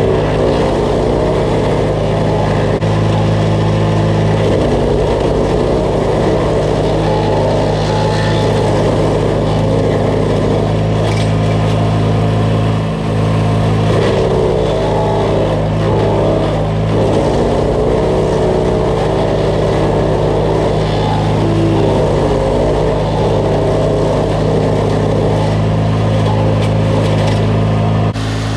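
DR wood chipper's gas engine running steadily while chipping brush, a constant low hum with the higher engine note wavering up and down, and a brief dip about halfway through.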